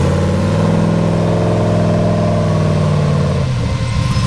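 Engine of a red tube-chassis off-road buggy revved up, held high for a couple of seconds and then dropped back to idle about three and a half seconds in.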